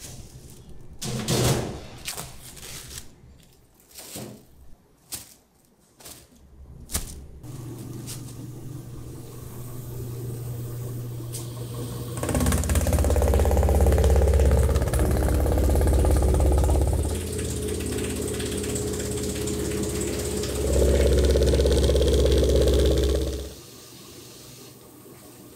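A few sharp knocks and clatters of metal trays being handled. Then a food slicing machine starts and runs with a steady hum, growing louder in two stretches as it cuts the shrimp-paste loaf into thin slices, and stops shortly before the end.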